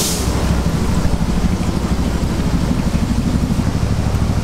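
Deep-fryer oil sizzling as a wire basket of cheese balls is lifted out, with a brief hiss right at the start, over a steady low rumble.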